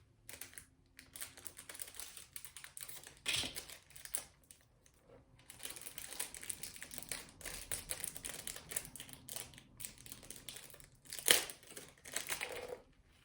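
Small plastic packaging being worked open by hand: irregular crinkling and crackling, sparse at first and then busy, with a sharp crackle about three seconds in and the loudest one near the end.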